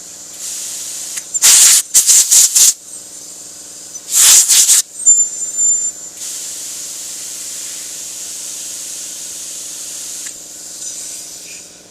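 Hissing jet of air or spray: a cluster of loud blasts about a second and a half in, another loud blast about four seconds in, then a steadier hiss for about four seconds that fades near the end. A steady low hum runs underneath.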